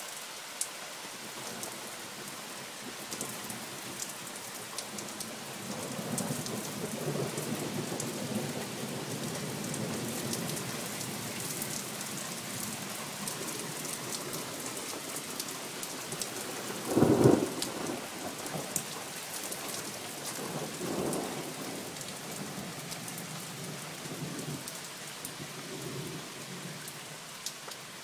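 Thunderstorm: steady rain falling with scattered drop ticks, and rolling thunder. A long low rumble builds from about six seconds in, a loud sharp thunderclap comes a little past the middle, and further weaker rumbles follow.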